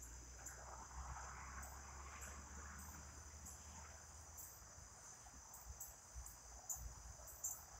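Faint, steady outdoor insect chorus with short repeated high chirps, over a faint low rumble of distant traffic that fades out about halfway through.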